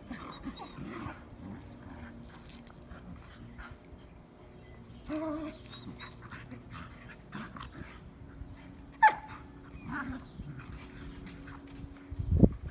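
Two Irish Terriers play-fighting, giving short yips and whines, with one loud sharp yelp about nine seconds in. A loud low thump near the end.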